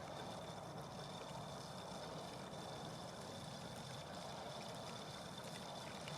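Faint, steady water-like rushing noise with a thin steady high tone running through it and a few faint ticks.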